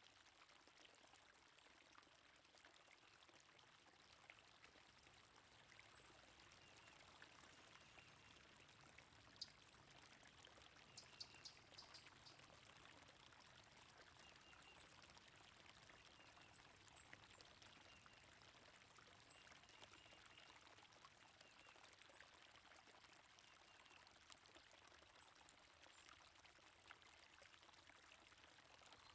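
Faint flowing water, a steady even rush like a stream, with scattered faint bird chirps over it.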